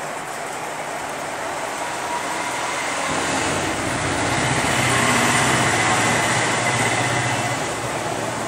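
A passing vehicle: a steady rushing mechanical noise that swells to its loudest about five seconds in and then fades, with a low hum under the middle of the swell.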